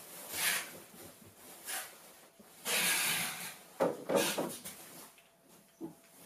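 Clear plastic cart parts being handled: rubbing and scraping of the plastic panels and trays, a longer sliding sound near the middle, then a quick series of plastic knocks as the trays are pushed and settled into their stack.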